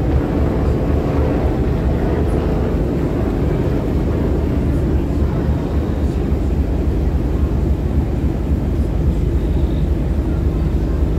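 Steady low rumble of a boat under way, its engine drone mixed with wind and water noise.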